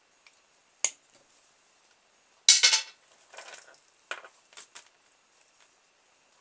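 Pliers cutting and prying at the plastic plug of a telephone extension lead: a series of sharp clicks and snaps, the loudest cluster about two and a half seconds in.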